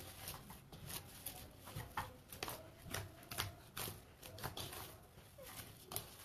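Hands kneading bhatura dough in a glass bowl: faint, irregular soft squishing and slapping, with light taps against the bowl.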